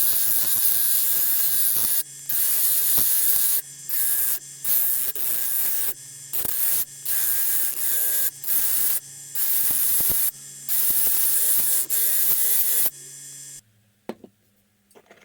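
Powered rust-cleaning tool working on a rusty steel wrench. A motor hums steadily while harsh hissing bursts come and go about a dozen times as the tool is pressed on and lifted off the metal. The hiss stops near the end, leaving only a few faint clicks.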